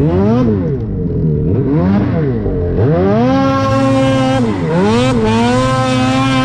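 A Ski-Doo Summit snowmobile's turbocharged two-stroke Turbo R engine revving in several quick rises and falls under throttle, then held high twice in the second half with a short dip between, as the sled is ridden through snow.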